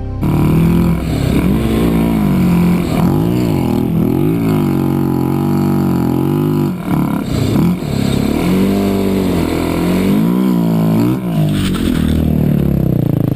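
Vehicle engine revving up and down over and over, its pitch rising and falling in waves, with a short drop about seven seconds in.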